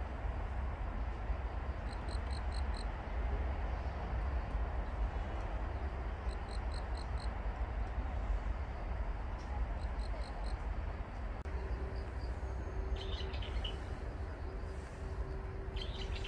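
Outdoor background noise: a steady rush with a low rumble under it. Through it, a short high chirp sounds four times in quick succession, recurring about every four seconds, and a few other twittering chirps come near the end.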